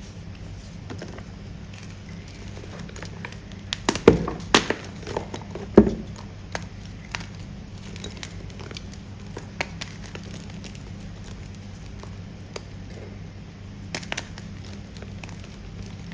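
Firm pasted chalk being bitten and crunched close to the microphone: a cluster of sharp crunches about four to six seconds in, then a few sparse small crackles, over a steady low hum.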